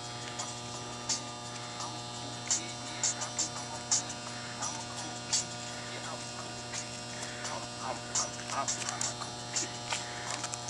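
Steady electrical mains hum with a ladder of overtones, with sharp clicks scattered through it.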